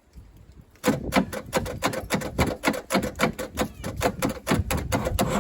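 Diesel engine of a 1963 Case 310F bulldozer turning over in an attempt to start, a fast run of uneven knocks about five a second that begins about a second in.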